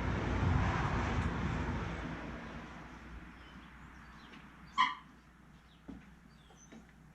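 A dog barks once, sharply, a little after the middle. Before it, a low rumbling noise swells and then fades away over the first few seconds.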